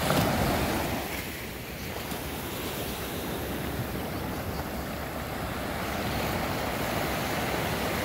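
Small ocean waves breaking and washing up a sandy shore, a little louder in the first second.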